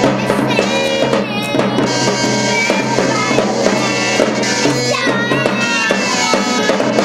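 Two kids jamming a song live, with drums struck throughout over other instruments.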